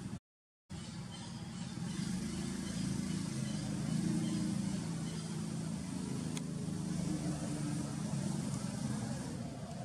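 A steady low engine hum, like a motor vehicle running at a distance, that cuts out to complete silence for about half a second just after the start. There is a single sharp click about six and a half seconds in.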